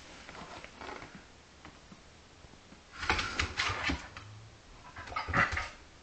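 Brittany spaniel making two short, breathy noises, one about three seconds in and a louder one near the end.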